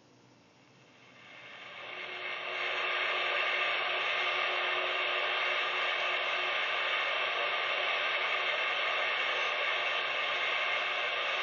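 CB radio receiver static: a steady hiss that swells in over the first couple of seconds after the received voice drops out, then holds level.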